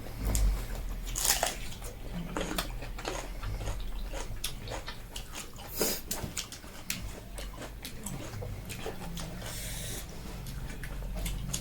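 Close-up eating sounds: people chewing and biting food, with many small irregular mouth clicks and smacks.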